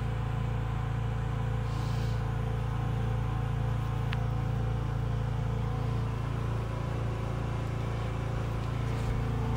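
Steady low machine hum with a few faint steady tones over it, unchanging in level.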